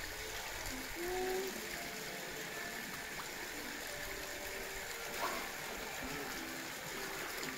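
Steady rush of running water, with a South American sea lion's call rising and then held about a second in, and fainter short calls later on.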